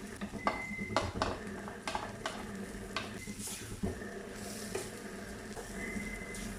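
Kimchi and rice stir-frying in a pan: a steady sizzle, with a utensil scraping and knocking against the pan several times in the first four seconds.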